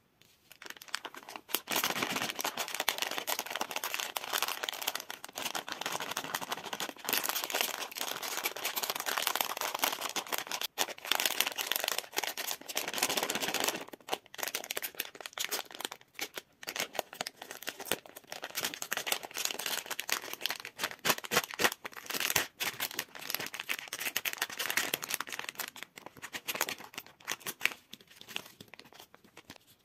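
A plastic gummy-candy bag crinkling and tearing as it is opened and handled: a dense, unbroken crackle for the first half. It then turns into patchier rustling as the gummies are taken out, and fades near the end.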